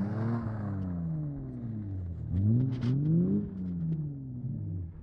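A car engine revving up and falling back again and again as the sedan spins its wheels and slides on snow. A few short clicks come about three seconds in.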